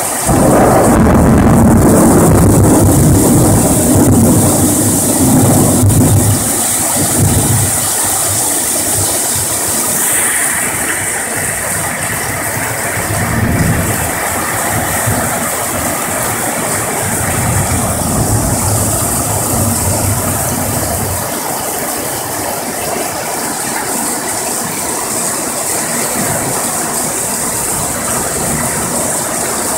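Heavy rain pouring steadily, with thunder: a loud rumble starts suddenly right at the beginning and rolls on for about six seconds, and fainter rolls of thunder follow twice more.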